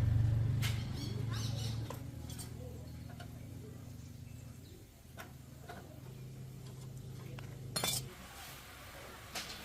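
Metal tools and parts clinking, with scattered sharp clicks and one louder knock near the end, over a low mechanical hum that fades over the first couple of seconds.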